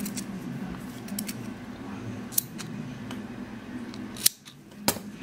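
Thread snips cutting crochet yarn: a few sharp snips and clicks, the loudest about four seconds in.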